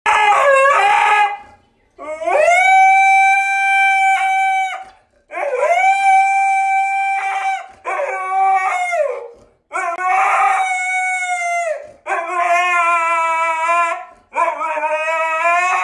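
Husky howling: a string of about seven long howls, each held one to three seconds at a steady pitch, bending at the start and end, with short breaks between them.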